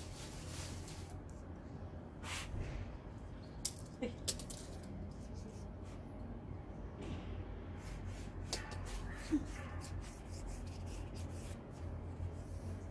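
Scattered brief hisses, light scrapes and clicks of spray-paint work: a short spray burst and tools and paper handled on the painting, over a low steady hum.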